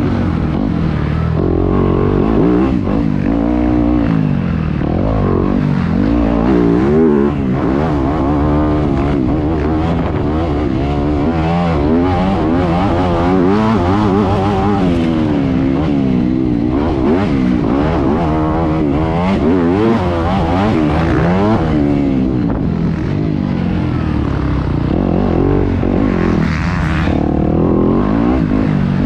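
Yamaha YZ250F four-stroke single-cylinder dirt bike engine, heard from on the bike as it is ridden hard. The revs keep climbing and dropping with throttle and gear changes.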